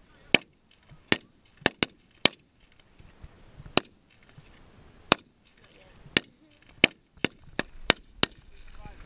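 Single shots from several 5.56 mm L98A2 cadet rifles firing from a line of prone shooters: about a dozen sharp cracks at uneven intervals, a few coming close together.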